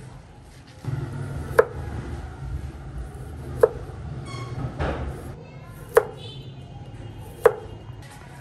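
Kitchen knife chopping through green onions, herbs and small limes onto a thick plastic cutting board: four sharp knife strikes against the board, about two seconds apart.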